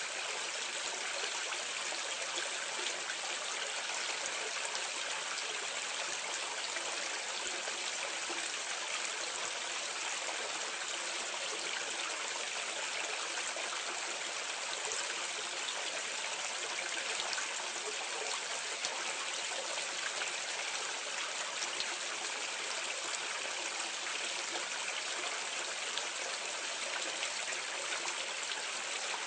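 Water pouring steadily into a drain, heard from medium distance: a constant, even splashing rush with no breaks or changes.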